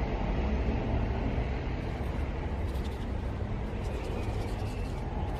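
Wind buffeting the microphone outdoors: a steady, uneven low rumble.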